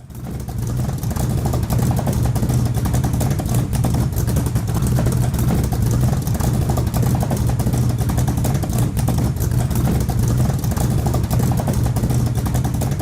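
A motor vehicle engine running steadily, fading in over the first second.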